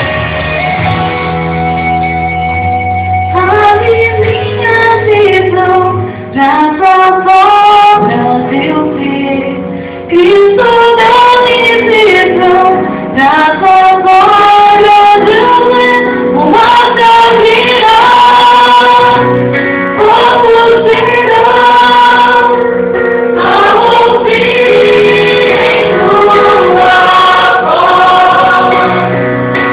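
Gospel song with a woman singing the lead over a band; the singing comes in after a few seconds of instrumental accompaniment.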